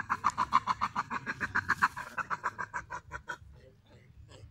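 An animal's rapid chattering call: an even run of short pulses, about eight a second, that stops a little over three seconds in, followed by a few faint clicks.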